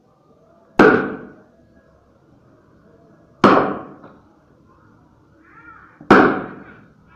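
An axe chopping into a tree log: three heavy strikes about two and a half seconds apart, each a sharp thunk that dies away quickly.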